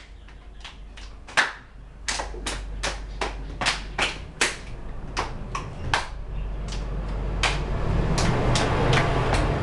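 Body percussion: hand claps and slaps in a rhythm, about two to three a second, with a noisy background building up over the last few seconds.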